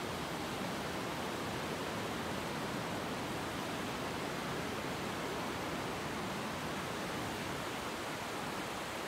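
Ocean surf washing over a flat sand beach: a steady rush of water noise with no distinct wave breaks standing out.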